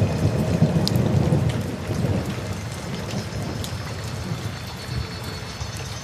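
Steady rain with a low rumble of thunder over the first two seconds that fades away, with scattered drops ticking through the rest.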